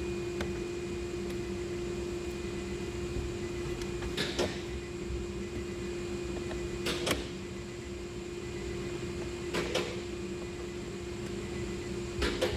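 Short plastic clicks in pairs, four times about two and a half seconds apart, from handling and pressing the rear AC cooler switch, over a steady hum.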